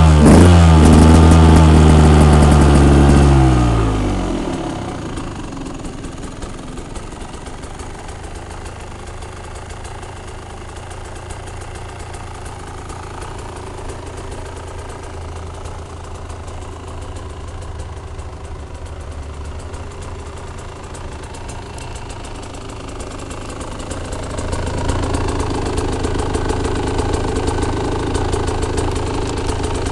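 KTM 125 EXC (2007) 125 cc single-cylinder two-stroke engine on its stock exhaust. It is loud and revved up at first, and the revs fall away over about four seconds into a steady idle. About three-quarters of the way through, the idle rises slightly and gets a little louder.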